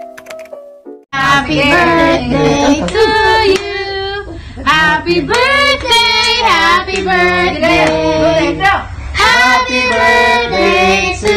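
About a second of soft intro music, then a child singing with a woman's voice, over a low room rumble.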